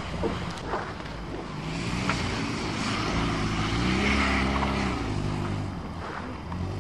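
Car engine revving hard as the car drives past, rising in pitch and loudness to a peak about four seconds in, then falling away.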